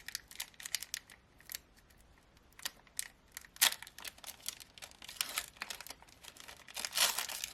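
Crinkling and crackling of a foil Pokémon booster pack wrapper and trading cards being handled, in short irregular crackles that thicken into a dense stretch of crinkling near the end.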